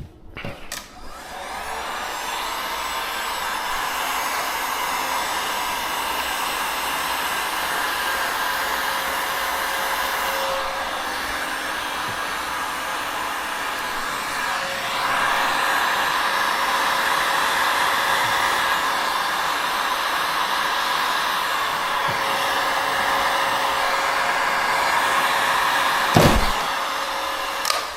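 Electric heat gun blowing steadily, softening the adhesive tape under a car's trunk spoiler. Its rush grows brighter about halfway through, and a sharp click comes near the end just before it stops.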